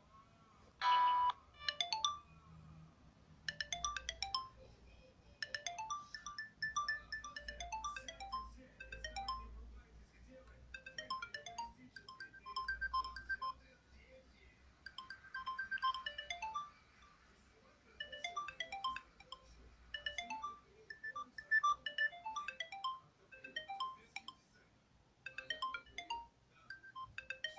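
Siemens S55 mobile phone playing ringtone melodies through its small loudspeaker: quick phrases of short electronic notes with brief pauses between them. A short, loud tone sounds about a second in.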